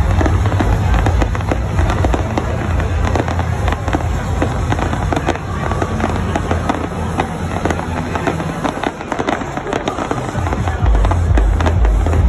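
Aerial fireworks going off in quick succession: a dense run of crackling pops from crackle-star shells.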